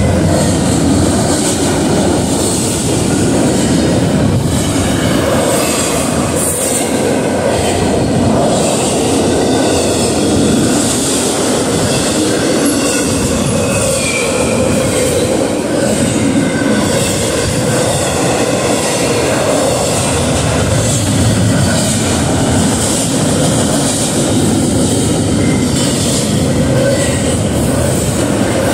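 Double-stack intermodal freight train passing close by at about 60 mph: steady, loud rolling noise of steel wheels on rail from the container-laden well cars.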